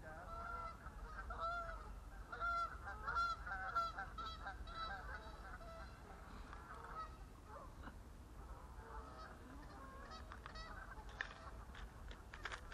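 Geese honking over water, many short calls in quick succession for the first few seconds, then fewer and more scattered. A few sharp clicks near the end.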